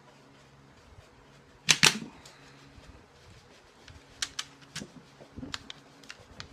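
Knife blade cutting thin heat-formed milk jug plastic over a resin skull: two loud sharp cracks close together nearly two seconds in, then a run of smaller clicks and snaps as the cut goes on. A faint steady hum runs underneath.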